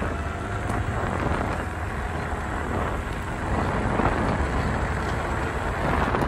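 Wind buffeting the microphone and a low tyre-and-road rumble while riding a scooter down a street at a steady cruising speed. The sound is a steady rush that swells a little around four seconds in.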